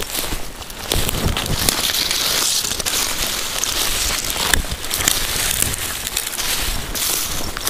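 Footsteps crunching and crackling through dry leaf litter and pine needles, with rustling in between.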